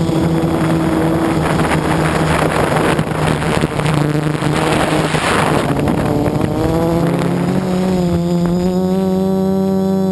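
Quadcopter's electric motors and propellers heard from on board: a steady buzzing whine that is swamped by wind rush for a few seconds in the middle as the craft banks hard. The whine rises in pitch near the end as the throttle comes up.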